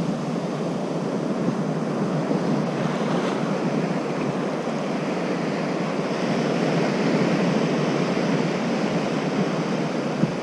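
Ocean surf breaking and washing steadily, with wind on the microphone; the wash grows a little louder about six seconds in.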